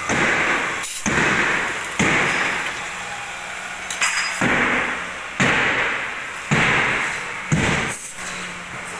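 Sharp strikes on steel in a metal workshop, roughly one a second, each trailing off in a hiss over most of a second.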